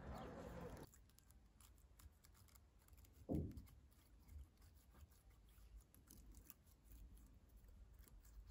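Faint outdoor ambience with bird chirps cuts off abruptly under a second in, leaving a quiet room with a single soft thud about three seconds in and faint scattered clicks of handling.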